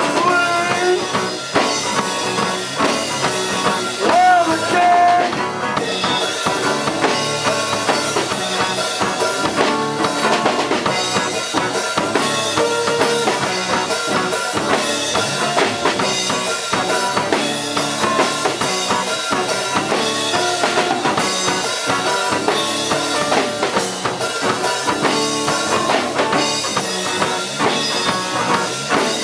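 Live band playing: drum kit with kick and snare keeping a steady beat under an acoustic-electric guitar and an electric bass.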